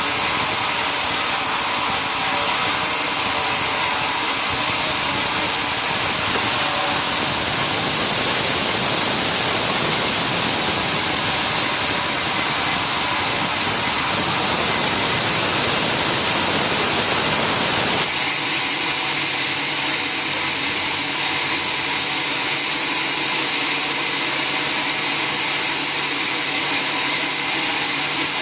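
Sawmill machinery running, a loud steady noise with a high whine. The sound changes abruptly about two-thirds of the way through, the whine dropping away.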